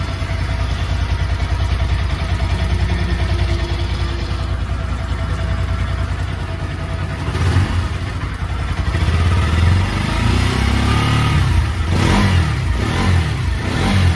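Bajaj Pulsar NS200 single-cylinder engine running at idle, then revved several times in the second half, just after a tappet (valve clearance) adjustment. The tick-tick is largely gone, with the slight tappet noise that these Pulsar engines always have.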